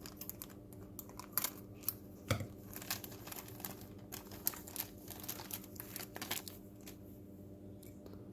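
Plastic parts packaging crinkling and crackling in the hands as the power switch part is taken out of it, in many short, irregular crackles that die away near the end.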